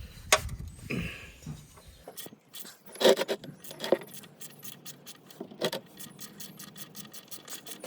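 Metal hand tools clicking and clinking as the engine oil sump drain plug of a BMW E90 is loosened with an H6 hex bit. The clicks are irregular, with a couple of louder knocks about three and four seconds in.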